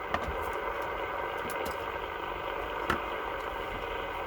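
CB radio receiver hissing with band static and faint steady tones, right after the operator unkeys between contacts. A sharp crackle about three seconds in.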